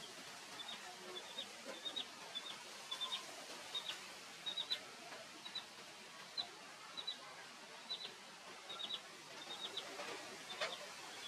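Bird chirping: short high chirps in quick clusters of two or three, repeating all through, over a steady outdoor hiss. One sharp click near the end.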